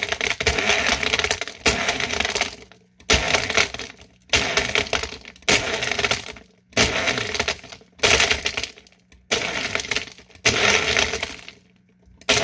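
Magic Bullet blender pulsed in about nine short bursts, a little over a second apart, each starting sharply and dying away, as the blades begin crushing ice cubes in milk and chocolate syrup.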